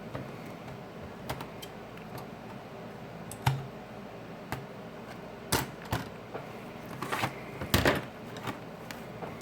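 Scattered light clicks and taps from small tools and phone parts being handled during adhesive fitting on a smartphone repair, a few louder knocks in the second half, over a steady low hiss.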